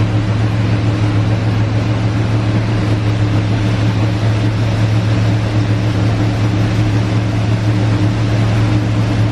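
Chevrolet 350 V8 engine in a 1964 AMC Rambler idling steadily, running again now that a loose-wire fault in the battery wiring has been fixed.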